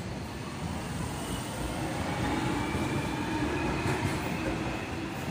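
Jubilee line tube train pulling out of the platform and running past: a steady rumble of wheels on the rails, with a faint motor whine that rises slightly in pitch as it picks up speed.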